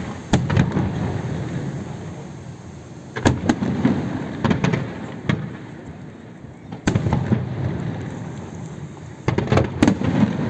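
Aerial fireworks shells bursting: clusters of sharp bangs every few seconds, each followed by a low rumbling echo.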